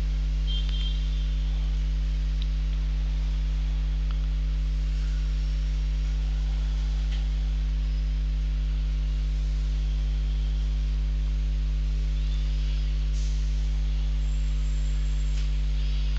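Steady low electrical mains hum with its overtones, running at an even level, with a few faint brief scratches and ticks now and then.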